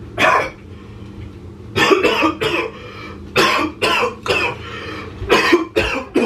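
A man coughing hard: one cough at the start, then three fits of several coughs each. He is reacting to a foul-tasting mouthful of soup.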